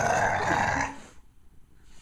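Pet dog growling, a rough noise like a Tasmanian devil's, that stops a little after a second in.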